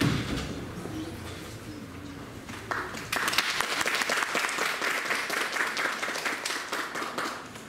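Audience applauding in a hall, starting about three seconds in and dying away near the end.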